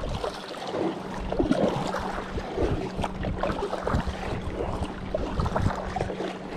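Double-bladed kayak paddle strokes, the blades dipping and splashing in lake water, with water sloshing along the kayak's hull.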